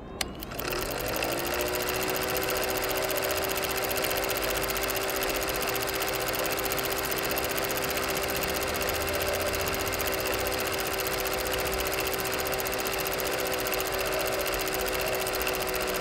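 Cine film projector starting up: a click, then the motor spins up to a steady whine within the first second and runs on with a fast, even mechanical clatter and hiss.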